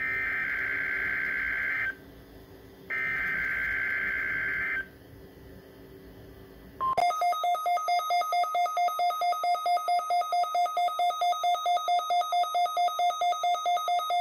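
NOAA Weather Radio alert tones heard through a weather radio's speaker during the required weekly test. First come two bursts of SAME digital header data, each a rasping warble about two seconds long, a second apart. About seven seconds in, a brief steady warning alarm tone gives way to rapid electronic beeping, about four to five beeps a second.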